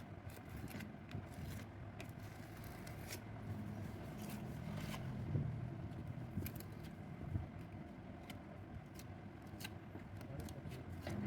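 Scattered light scrapes and clicks of hand tools working on a fridge door's metal panel, such as a spreader or blade, over a steady low rumble.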